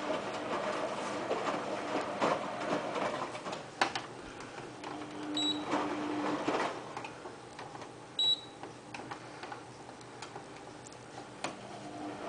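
AEG front-loading washing machine washing in its customer-service test cycle: the motor turning the drum, with irregular knocks and clicks as the laundry tumbles. It goes quieter after the middle and picks up again near the end, and two short high beeps sound a few seconds apart.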